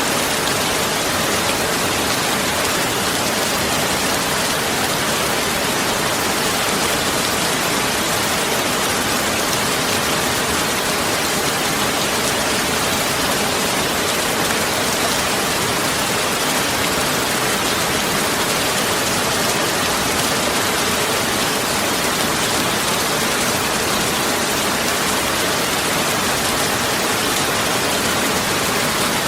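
Heavy rain falling steadily as a dense, even hiss.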